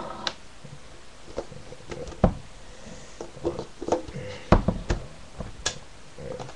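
A DVD box set being opened and handled: irregular clicks and knocks of its packaging and the plastic disc cases inside, loudest about a third and two-thirds of the way in.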